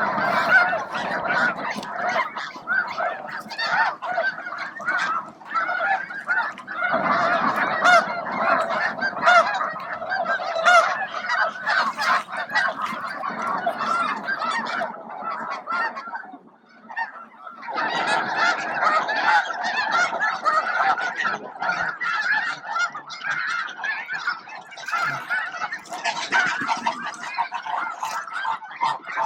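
A large flock of snow geese honking: many overlapping calls in a dense, continuous chorus, which thins out briefly about halfway through before resuming.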